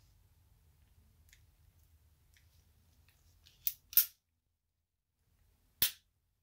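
Sharp metallic clacks from a Colt 1908 Vest Pocket pistol's action being worked by hand: a quick double clack about four seconds in, then a single click near the end, over faint handling ticks.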